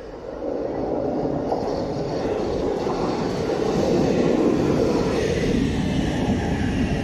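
Oslo Metro MX3000 train arriving at an open-air platform: the wheel and motor rumble swells quickly as it approaches and stays loud as the cars run past. A high whine comes in near the end.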